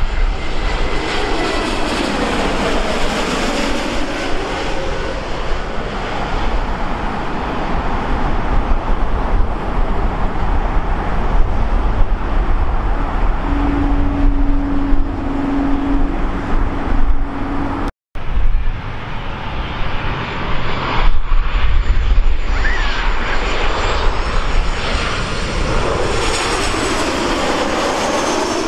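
Turbofan engines of jet airliners on landing approach passing low overhead: loud, steady jet noise whose pitch pattern sweeps down and back up as each aircraft goes over, once early and again near the end, when it is a WestJet Boeing 737-700. The sound breaks off for a split second about two-thirds of the way through.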